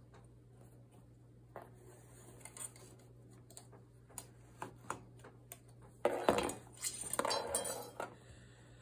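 Light clicks and taps of metal weaving tools against a potholder loom. About six seconds in, a louder scraping rustle lasts roughly two seconds as the tools are drawn out of the cotton loops and laid on the table.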